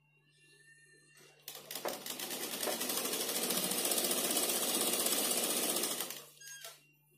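Sewing machine stitching a seam in one fast run of rapid needle strokes, starting about a second and a half in and stopping about six seconds in.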